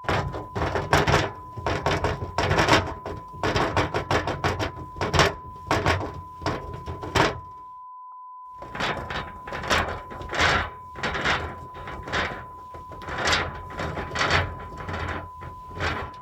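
Ill-fitting sliding window of an old Japanese house dragged along its track in jerky, rattling scrapes, in two long pushes with a short pause about eight seconds in. A steady beep tone runs underneath.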